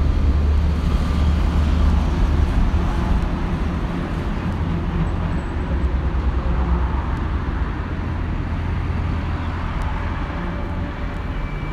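Steady low rumble of road traffic with a broad noisy hiss over it, easing slightly after a few seconds; no separate motor whine stands out.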